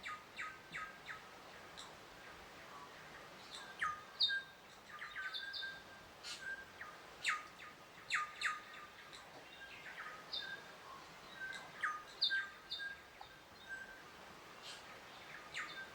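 Birds chirping: short, sharp calls scattered irregularly, about one every second or so, over a faint steady background hiss.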